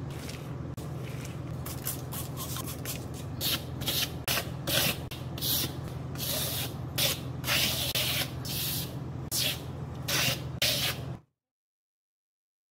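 Texture roller pressed and rolled over wet cement stucco on a wall: repeated sticky, crackling hisses, one with each stroke, over a steady low hum. The sound cuts off suddenly near the end.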